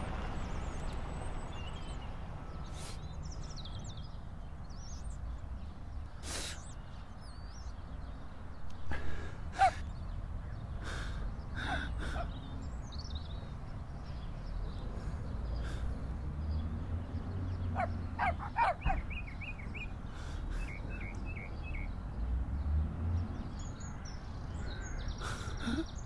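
Low steady background rumble with scattered short sharp taps, the loudest about ten seconds in. Birds chirp in quick runs of notes, most clearly about eighteen seconds in.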